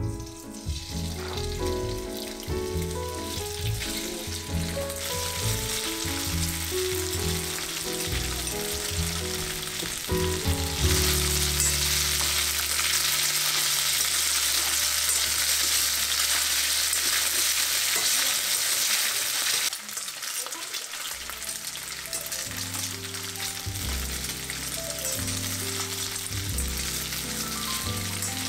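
Food frying in hot oil in a pan: a steady sizzle that grows much louder about eleven seconds in and drops back down about eight seconds later.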